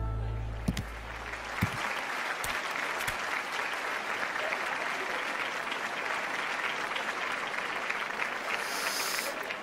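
A crowd applauding steadily, a dense even clatter of clapping. A low tone fades out in the first second.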